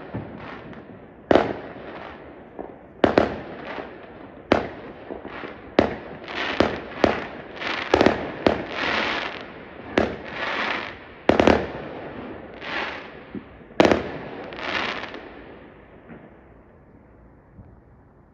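Fireworks going off: a rapid string of sharp bangs, often a second or less apart, mixed with longer noisy bursts, thinning out and fading over the last couple of seconds.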